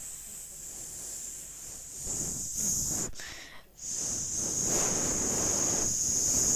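Grilling sizzle sound effect, a steady hiss of something cooking on a barbecue grill. It drops out for a moment about three and a half seconds in, then comes back louder.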